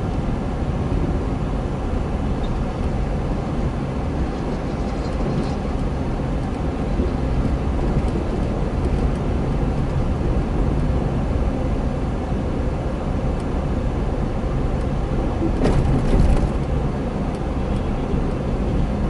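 Car driving slowly, heard from inside the cabin: steady engine and road rumble. A short clatter breaks through a bit after three-quarters of the way in.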